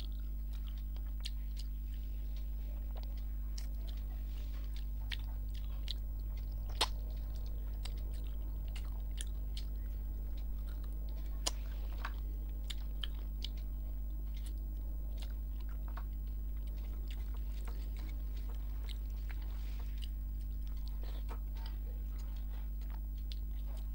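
Close-up chewing and mouth sounds of a person eating rice and mutton curry by hand: scattered small wet clicks and smacks, with two sharper clicks about seven and eleven seconds in. A steady low hum runs underneath.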